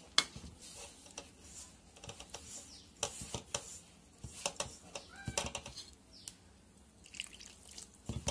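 Hand kneading damp, crumbly murukku dough of rice and urad dal flour in a stainless steel bowl: irregular small clicks and rustles as the fingers squeeze and turn the flour.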